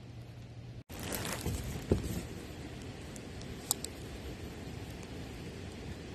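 Close rustling and handling noise of a fishing rod and gear in a kayak, with a sharp knock about two seconds in and a short click near four seconds, over a steady outdoor background hiss. A brief dropout comes just under a second in.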